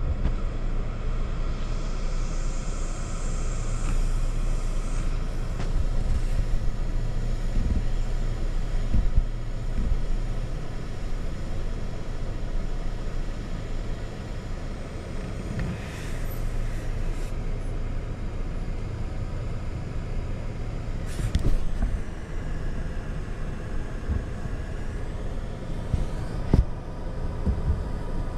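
Car engine idling and creeping forward, heard from inside the cabin as a steady low rumble, with a few brief knocks along the way.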